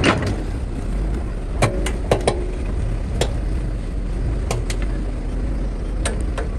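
Excavator's diesel engine running steadily at a low rumble, with about eight sharp knocks and clanks spread through it.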